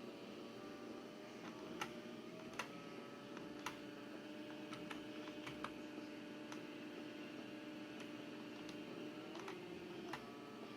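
Footsteps clicking on a hard car-park floor, roughly one a second, over a faint steady hum.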